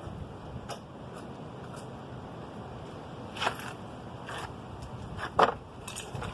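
A few scattered sharp clinks and knocks of hand tools and metal parts during motorcycle disassembly, the loudest about five and a half seconds in.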